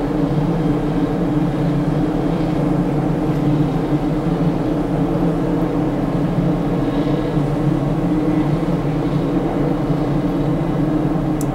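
Steady low drone of ship engines, with a couple of constant humming tones over an even rush of noise.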